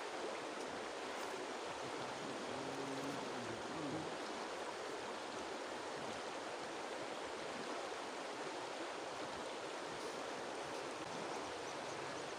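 Shallow river rushing over a stony bed: a steady, even rush of water.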